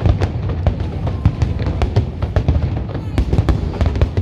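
Aerial fireworks bursting in rapid succession: many sharp cracks a second over a continuous low rumble of booms.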